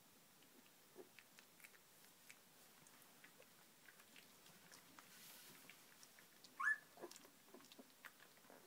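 Young puppies moving about and mouthing, making small faint clicks and ticks, with one short high puppy squeak about two-thirds of the way through.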